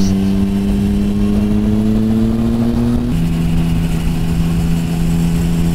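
Triumph Speed Triple's three-cylinder engine pulling steadily at speed, its pitch rising slowly. About three seconds in the pitch drops suddenly, then holds steady.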